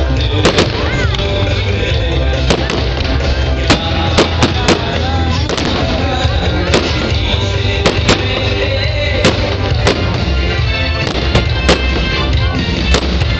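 Fireworks shells bursting in quick, irregular succession, about one or two sharp bangs a second, over loud music.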